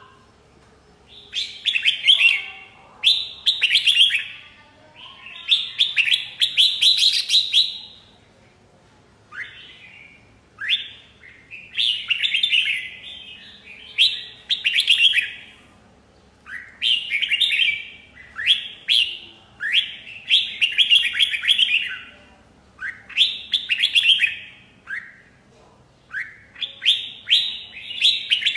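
Red-whiskered bulbul singing: short, bright phrases of quick notes, repeated over and over with brief pauses between them.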